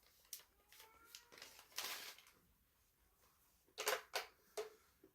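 Someone biting and chewing crunchy food close to the microphone: a few scattered crisp crunches, a longer crunch about two seconds in, and three sharp crunches in quick succession near the end.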